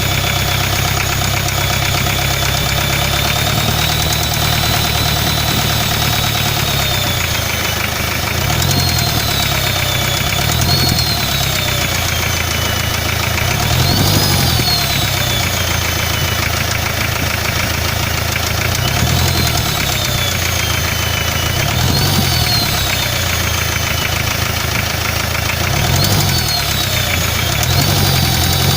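Hyundai Starex 2.5 turbodiesel engine idling with a knock and being revved briefly about seven times, a high whistle rising and falling with each rev. The owner blames the knock on engine damage caused by a failed turbocharger.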